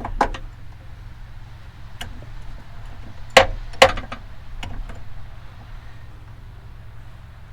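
Small metal hardware being handled: short, sharp metallic clicks and clinks. A few come right at the start, one comes about two seconds in, and the two loudest are about half a second apart near the middle, followed by a couple of fainter ones. A low steady hum runs underneath.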